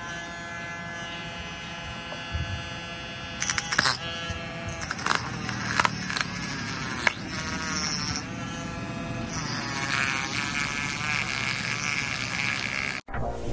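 Homemade rotary tool's 555 DC motor running with a steady whine, then its small metal cutting disc cutting into cardboard from about three and a half seconds in: scraping and clicking, the motor's pitch wavering as the disc bites. The sound cuts off suddenly near the end.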